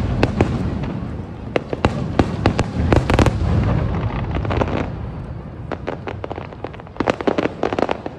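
Aerial fireworks bursting: a rapid run of sharp cracks and pops over a low rumble of booms, densest about three seconds in and again in a quick cluster near the end.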